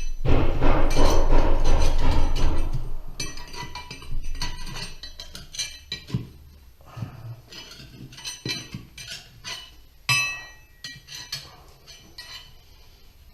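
Jackhammer chipping at the concrete slab around a cast iron toilet flange, stopping about three seconds in. Then broken pieces of concrete and metal clink and clatter as they are handled, with one ringing metallic clank about ten seconds in.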